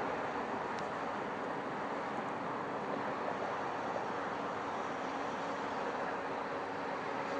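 Steady, even rushing background noise with a faint low hum that grows a little stronger near the end, and a few faint ticks.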